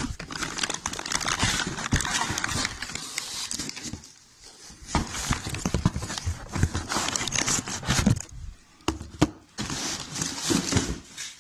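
Packaging and tool handling during an unboxing: irregular crinkling and rustling of plastic and cardboard, broken by sharp clicks and knocks, with a couple of brief lulls.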